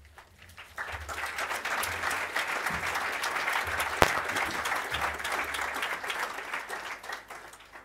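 An audience of mourners applauding, rising about a second in and dying away near the end. One sharp, louder crack stands out about halfway through.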